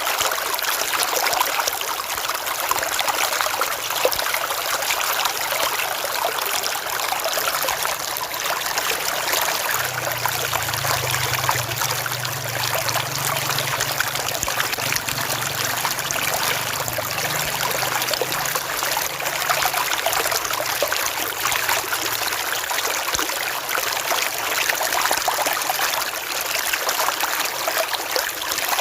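River water flowing in a steady, unbroken rush. A faint low hum rises under it about a third of the way in and fades out about two-thirds through.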